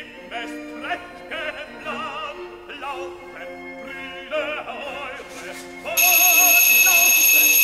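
Operatic singing with wide vibrato plays throughout. About six seconds in, an electric doorbell buzzer sounds loudly over it in one steady buzz lasting about a second and a half: someone ringing at the door.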